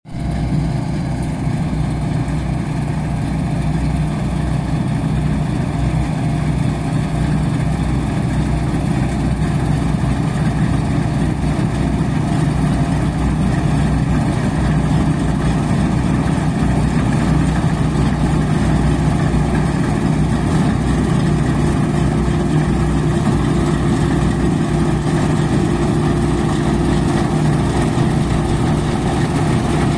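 Bizon 5056 combine harvester's diesel engine and threshing machinery running steadily under load while it cuts barley, a constant low drone that grows slightly louder as the machine comes closer.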